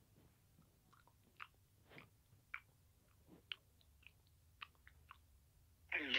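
Crunchy bites and chewing of a taco, short sharp crunches coming at roughly two a second. Near the end a louder sound with a wavering pitch begins.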